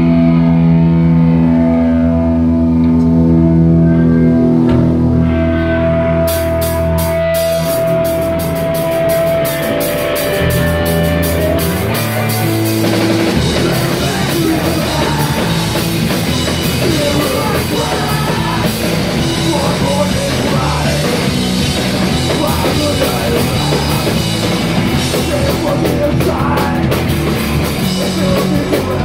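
Live punk rock band playing loud through amplifiers: electric guitar and bass guitar hold ringing notes at first, then the drums and cymbals come in about six seconds in, and the full band plays fast from about halfway through.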